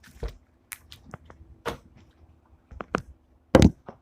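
Pink slime with jelly cubes being squished and poked by hand, making irregular small clicks and pops, with a louder thump near the end.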